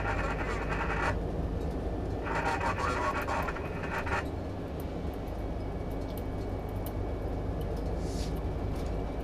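Highway coach driving, heard from inside the cabin: a steady low rumble of engine and road noise. Two stretches of hissing noise come through it, one at the start and one from about two to four seconds in.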